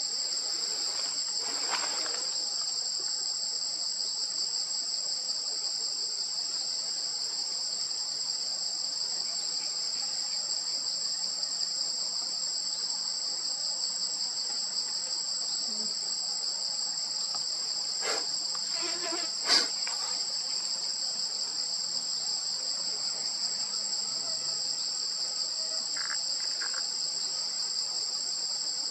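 Dense, steady high-pitched drone of a forest insect chorus, with a few brief clicks and chirps about two-thirds of the way through, one of them sharp.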